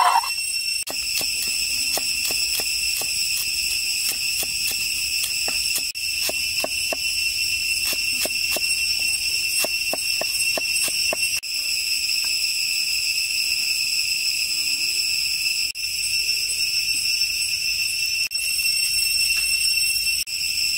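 A cleaver chopping green onions on a wooden board, a quick run of sharp taps through the first half, over a steady, high insect chorus of crickets or cicadas.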